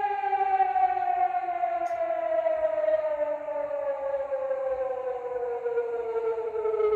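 Siren-style emergency alarm tone with a rich, buzzy stack of overtones, its pitch falling slowly and evenly like a civil defence siren winding down.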